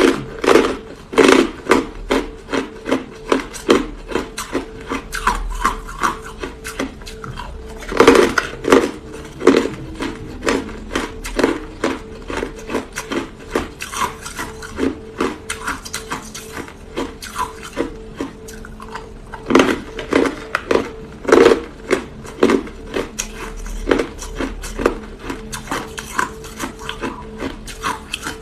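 A person biting and chewing hard frozen cola ice close to the microphone: a run of sharp, irregular crunches and cracks, several a second, with the loudest bites near the start, about eight seconds in and about twenty seconds in.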